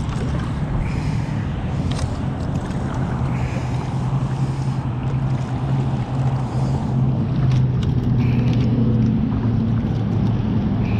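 Kayak being paddled along a narrow stream: paddle strokes and moving water over a steady low hum.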